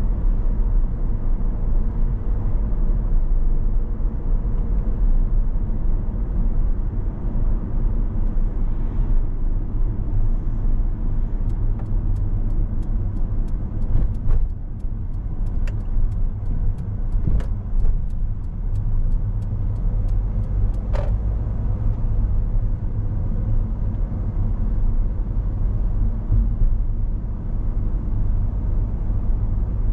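A car driving on a city road, with a steady low rumble of tyres and engine. For about ten seconds in the middle there is a run of faint, even ticks, with a few louder knocks among them.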